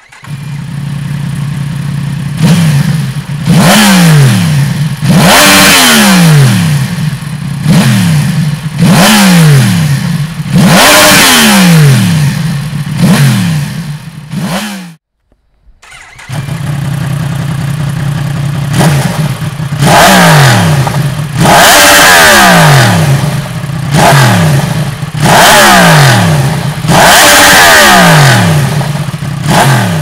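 Yamaha MT-10's crossplane inline-four idling and revved in repeated short throttle blips, each falling back to idle, through Dominator aftermarket exhausts. The sound breaks off briefly about halfway, then the same idle-and-blip pattern resumes with a different silencer fitted.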